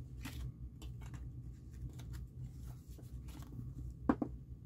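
Paper banknotes rustling as bills are counted off a stack and slid into a clear plastic pocket of a ring binder, with scattered soft clicks and crinkles.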